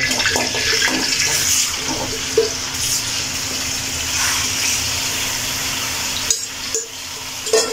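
Mutton pieces dropped into hot oil in an aluminium karahi, the oil sizzling with a steady hiss. A few light knocks sound, one about two and a half seconds in and a couple near the end.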